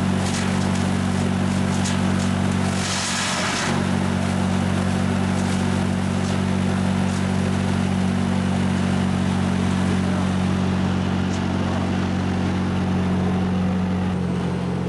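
A mobile wood trunk crusher's 55 hp diesel engine running steadily, with a loud burst of chipping noise about three seconds in as wood goes through the cutter, the engine note dipping under the load.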